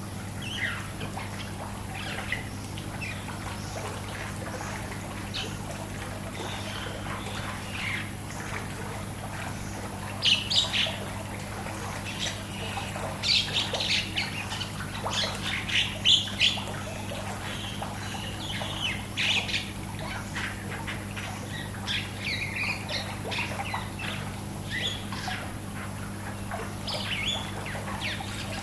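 Birds chirping and calling in short, scattered calls, thickest and loudest in the middle, over a steady low hum and the sound of pool water.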